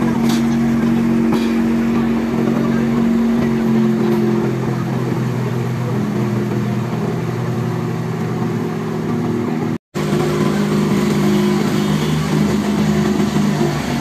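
Fire truck engine running steadily with a low drone. The sound drops out for an instant about ten seconds in.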